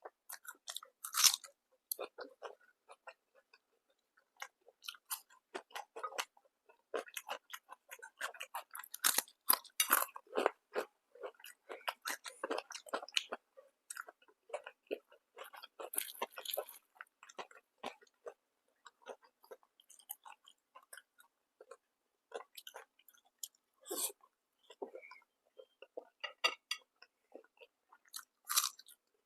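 Close-up chewing and biting of food: irregular wet chewing clicks, with a few louder crunchy bites about a second in, around the middle, and near the end.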